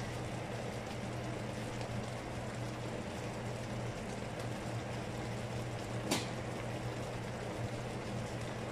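Pots simmering on a cooktop: a steady low bubbling hiss over a constant low hum, with a single sharp click about six seconds in.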